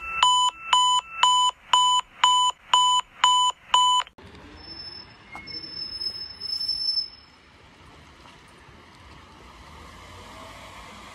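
Eight short electronic alert beeps, about two a second, the first three stepping between two pitches; they stop about four seconds in. After that there is only quiet street background, with a faint high steady whine for a few seconds.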